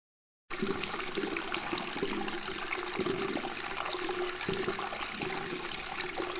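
Rushing water that cuts in suddenly about half a second in, then runs steadily with a gurgling low churn.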